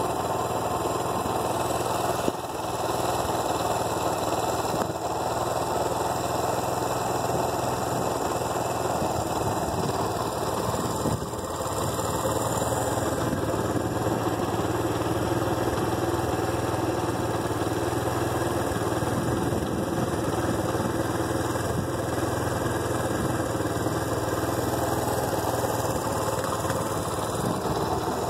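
Diesel freight locomotive's engine idling with a steady, even hum.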